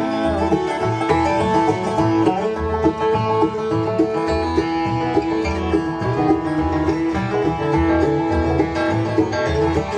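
Instrumental bluegrass music: banjo and guitar picking over a steady bass beat, between sung verses.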